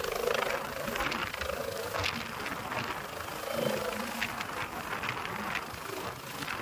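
Din of a large outdoor crowd: many voices talking and shouting at once.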